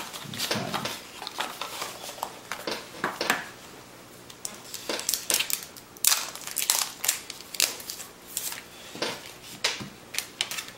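Cardboard box inserts and plastic-wrapped accessories being handled: a busy, irregular run of rustles, clicks and light taps.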